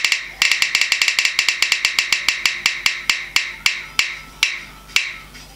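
Spinning-wheel app on a smartphone ticking through the phone's speaker as its wheel spins: rapid clicks that slow steadily as the wheel winds down, ending in ticks about half a second apart.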